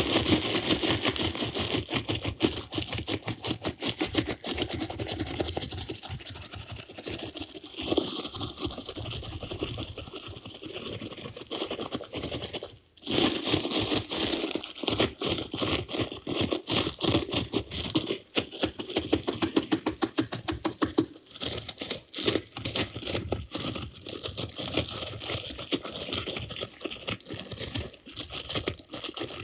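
Dense, continuous scratching and crackling noise serving as a composed dance soundtrack. It starts abruptly and breaks off for a moment about 13 seconds in before resuming.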